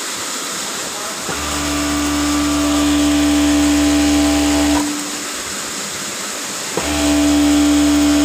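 Overlock sewing machine stitching the edge of a knitted glove, running in two spells: it starts about a second in, stops a little past the middle, and starts again near the end. A steady hiss continues underneath throughout.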